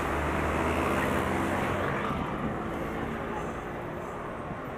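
Engine and road traffic noise heard from a moving vehicle, with a low, steady engine hum. The noise eases a little about two seconds in.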